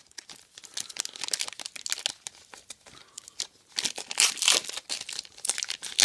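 Plastic trading card pack wrapping being crinkled and torn open by hand: irregular crackling throughout, loudest in a dense rush about four seconds in.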